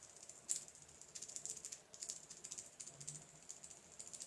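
A thin stick scraping and clicking against the inside of a small plastic bottle cap as something is stirred in it: a rapid, irregular run of light, high ticks and scratches.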